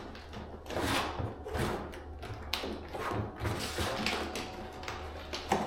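Flooring underlayment sheet rustling as it is pressed and creased against a baseboard by hand, in a series of short brushing strokes, with a sharp click near the end.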